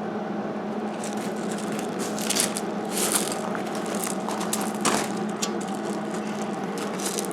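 A steady hum runs throughout. Over it come scattered clinks and scrapes of metal parts being handled, the sharpest about two, three and five seconds in.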